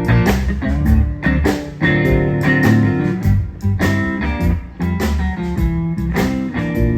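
Live blues-rock band playing at a sound check: guitar-led groove over bass and drums, with a steady beat of drum hits.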